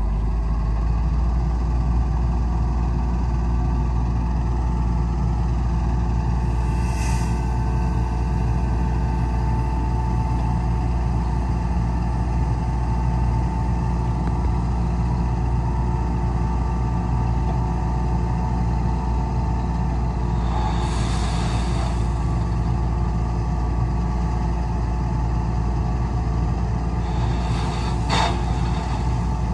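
Heavy diesel machinery engine running steadily with a deep drone, and a steady whine above it for most of the time. Three short hissing noises come in, about seven seconds in, around twenty seconds in and near the end.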